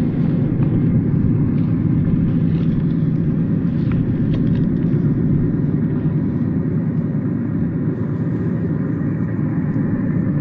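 Steady low engine rumble of a slow-moving truck, with a few faint clicks.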